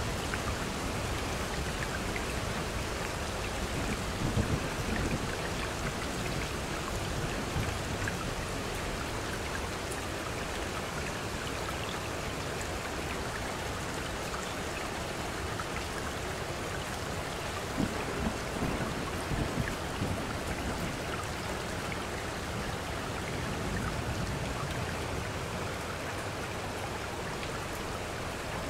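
Steady recorded rain mixed with running stream water, an even hiss of falling drops and flowing water. The sound briefly swells deeper and louder about four seconds in and again around eighteen seconds in.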